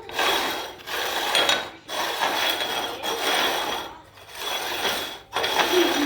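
Upturned containers being slid and shuffled over a table surface in a shell game. About six rough scraping strokes, each half a second to a second long, with brief pauses between them.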